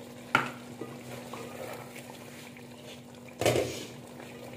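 A sharp knock on an aluminium cooking pot, then a wooden spatula stirring potato chunks through a thick masala, with a short loud scraping swish a little past three seconds in. A faint steady hum runs underneath.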